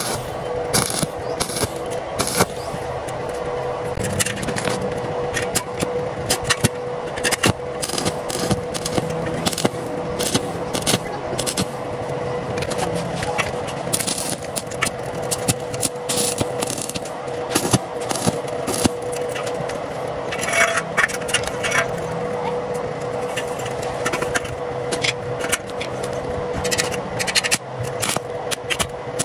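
Stick-welding arc crackling and sizzling steadily as the electrode lays beads on thin steel square tube, with a steady hum underneath.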